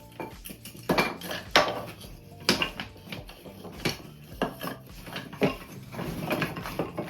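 Wooden beehive frame parts clattering and knocking together as they are handled and sorted, about seven sharp knocks at irregular intervals.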